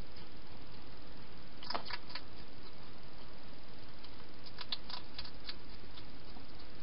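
Wild hedgehog eating from a bowl: two short bursts of crisp crunching clicks, about two seconds in and again around five seconds, over a steady hiss.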